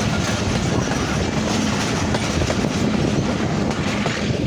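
Moving passenger train heard from an open carriage window: a steady, loud rumble of the wheels running on the rails.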